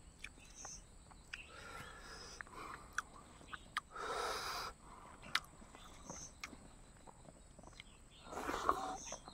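Eating by hand: fingers working rice and tender pork, with scattered wet mouth clicks and chewing. There is a louder squelching burst about four seconds in, and another near the end as a mouthful goes in.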